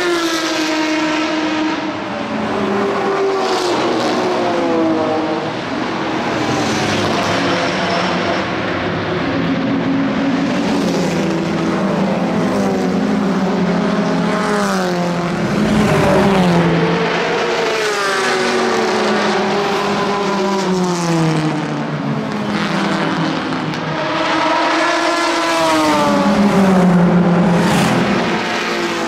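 Historic racing cars passing at speed, one after another. Each engine note sweeps down in pitch as the car goes by, with rising revs between passes.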